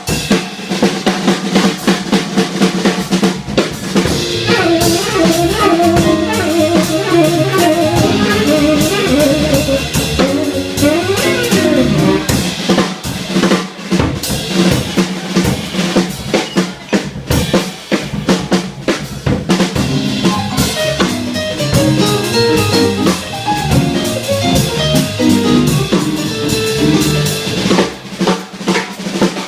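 Live small-group jazz with the drum kit to the fore, busy snare, bass drum and rimshot strokes. Pitched lines from the piano and bass come and go over the drums.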